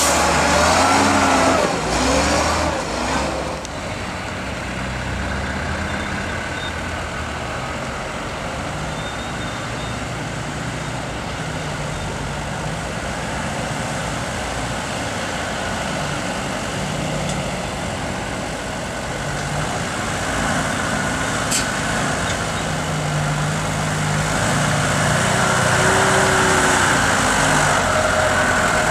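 Unimog off-road trucks' diesel engines running at low speed as they crawl over steep dirt mounds, the engine note growing louder and stronger in the last several seconds.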